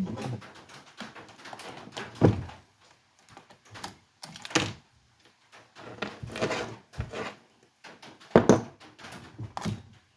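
Irregular knocks, clicks and scrapes of hands and tools working on a Stihl MS311 chainsaw's housing while a cover is taken off, with two louder knocks about two seconds in and near the end.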